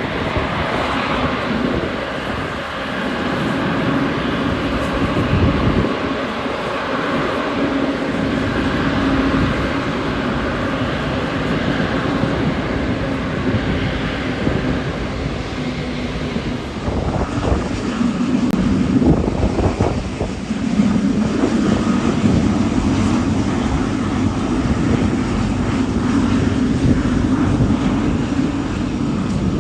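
Jet airliner engines running, a steady rumble with a low hum that grows louder about two-thirds of the way through.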